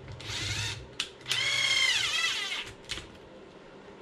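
Small cordless power screwdriver driving a screw into the RC car's chassis: a short run of motor whine, then a louder run of about a second and a half that drops in pitch as it winds down, with a click after each.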